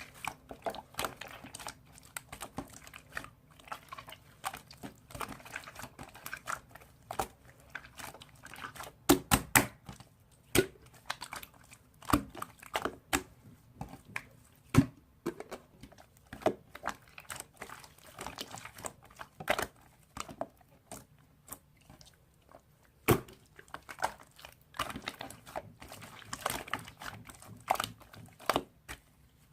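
Slime being squeezed, poked and stretched by hand, giving irregular sticky clicks, pops and crackles. A few louder pops stand out.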